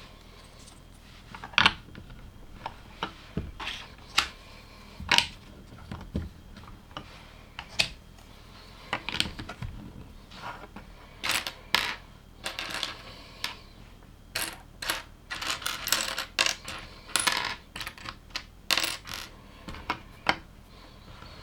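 Plastic LEGO pieces clicking and clattering as they are handled and fitted together, in irregular sharp clicks that come thicker in the second half.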